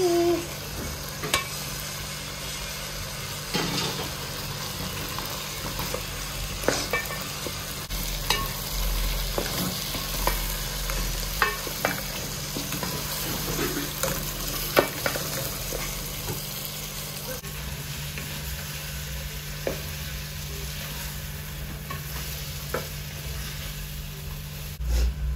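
A wooden spoon stirring beef, potatoes and tomato sauce in an aluminium cooking pot, the stew sizzling steadily underneath, with scattered short clicks and scrapes of the spoon against the pot.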